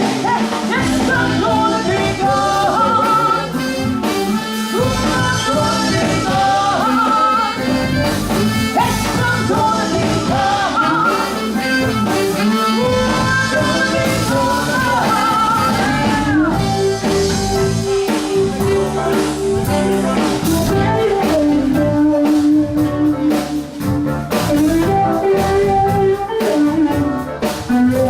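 Live blues-rock band playing an instrumental break: drums and bass under a bending lead melody line, which gives way about sixteen seconds in to long held notes.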